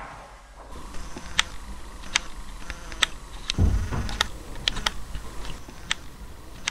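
A series of sharp clicks at irregular intervals, roughly one every half second to a second, with a low thud about three and a half seconds in.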